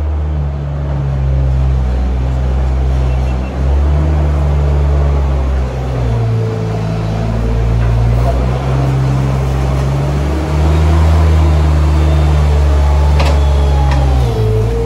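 Engine of a compact articulated loader running under load as it drives and pushes manure, a steady low hum that shifts in pitch every few seconds as the throttle and load change.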